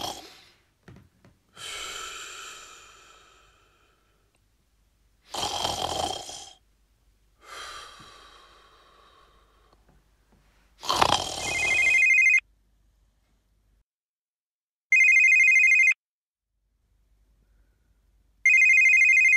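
Several snoring breaths, then a mobile phone ringing with a trilling, bell-like ringtone: three short rings about three seconds apart in the second half.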